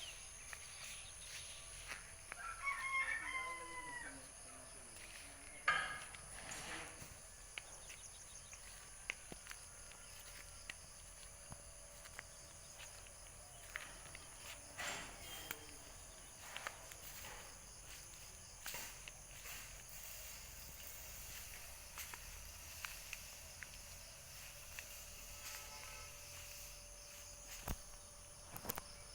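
A rooster crows once, about two to four seconds in. Scattered sharp knocks and clicks follow, over a steady high-pitched hum.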